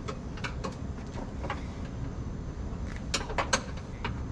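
Sharp clicks and light knocks of tools and parts as a bushing is forced onto a Porsche 914's headlight mechanism arm, with a few scattered clicks and then a quick cluster of four or five louder ones about three seconds in, over a steady low rumble.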